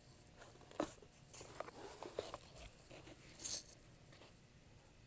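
Cardboard shipping box being handled and opened: a series of irregular rustles and scrapes of the flaps and packaging, the loudest about three and a half seconds in.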